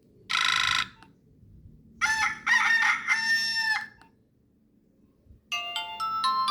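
Nokia 1661 phone's speaker playing a rooster-crow tone: a short buzzy note, then a crow lasting about two seconds. About five and a half seconds in, a synthesized ringtone melody of stepped notes begins.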